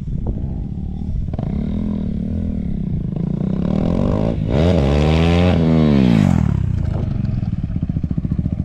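KTM Duke single-cylinder motorcycle engine running with its exhaust silencer removed, popping with a fast, even beat. It is revved in a few short blips early on, then in a longer, louder rev that climbs and falls back in the middle.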